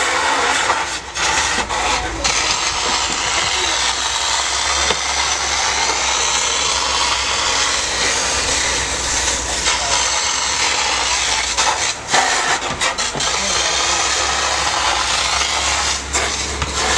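Burning pickup truck, its cab fully alight, giving a steady loud rushing hiss with a few sharp crackles or pops, over a low rumble.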